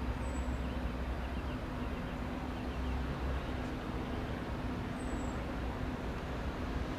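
Steady jet engine rumble from a Boeing 747-400, with a low hum running under it. Faint bird chirps come through about one to three seconds in.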